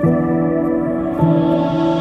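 Background music of long held notes, with a new note coming in a little over a second in.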